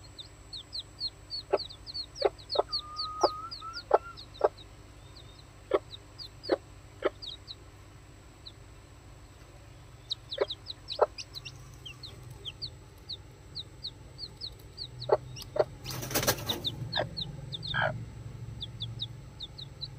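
Red junglefowl hen clucking in short, separate clucks while her newly hatched chicks peep rapidly in thin, high cheeps. A brief loud rustle comes about sixteen seconds in.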